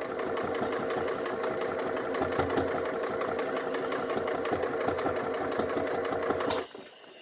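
Small electric sewing machine running steadily, its motor whining and the needle stitching fast through thick layered cloth, then stopping suddenly near the end.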